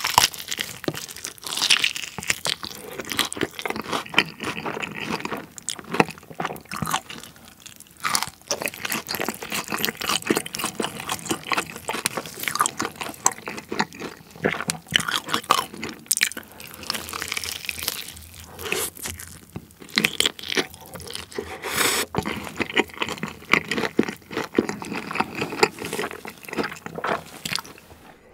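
Close-miked eating of a yangnyeom-sauced fried chicken drumstick: biting and chewing with many quick, sharp crunches of the fried coating throughout.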